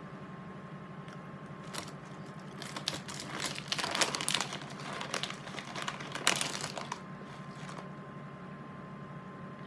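Plastic pretzel bag crinkling in a run of rustles as a hand rummages inside it, loudest about four and six seconds in.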